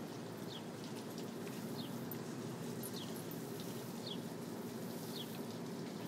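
A bird calling: a short, high, falling chirp repeated about once a second, over a steady low hum.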